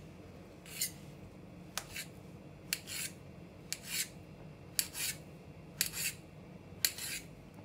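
Kitchen knife slicing a peeled nendran banana into rounds on a stainless steel cutting board. There are seven cuts, about one a second, each a sharp click of the blade on the metal board with a short scrape.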